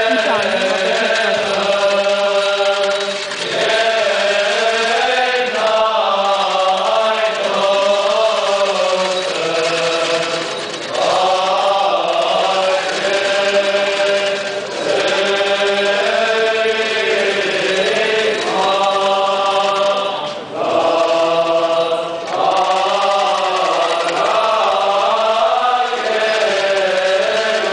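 Armenian liturgical chant sung by a choir of many voices, moving in procession. It goes in sung phrases of a few seconds, each separated by a brief break.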